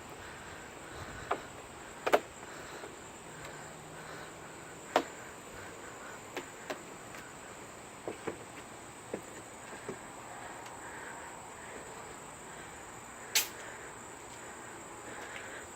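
Insects trilling steadily in a high, thin, unbroken tone, with a few sharp scattered clicks and knocks, the loudest about 13 seconds in.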